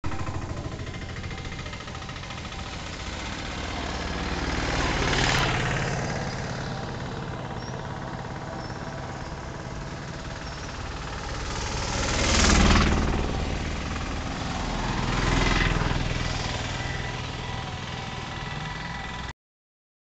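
A steady engine drone runs throughout, while road vehicles pass three times, each swelling up and fading away. The loudest pass comes about twelve seconds in.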